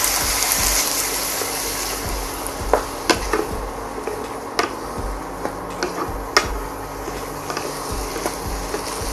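Stock sizzling in a hot nonstick frying pan as spaghetti and bacon are tossed and stirred with a wooden spatula. The hiss is strongest at first and dies down after a few seconds, with several sharp taps of the spatula against the pan; the loudest comes about six seconds in.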